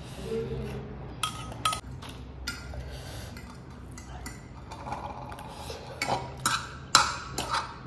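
Metal spoon and fork clinking and scraping on a ceramic plate while scooping up fried rice: a series of sharp clinks, a couple about a second in and a quicker cluster in the last two seconds.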